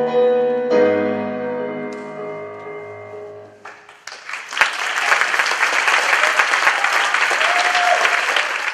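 The dance music ends on a final chord struck about a second in that rings out and fades away. About four seconds in, audience applause breaks out and carries on, with a short cheer near the end.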